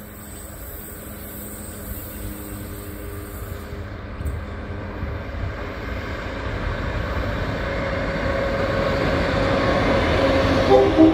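A single diesel locomotive running light, its engine and wheels rumbling and growing steadily louder as it approaches. A brief louder squeal from the wheels comes near the end.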